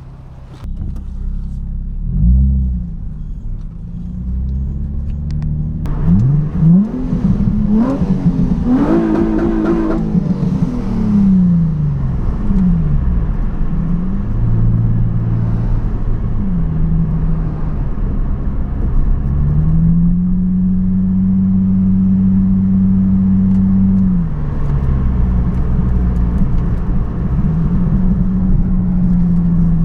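Nissan 350Z's V6 engine pulling through the gears: its pitch rises and falls again and again, with quick up-and-down sweeps around 6 to 13 seconds in and a long steady pitch about two-thirds of the way through.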